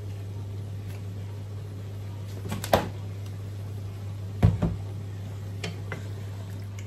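Kitchen utensils knocking, with a sharp clack almost three seconds in and a louder one about four and a half seconds in, then a few light taps, over a steady low hum.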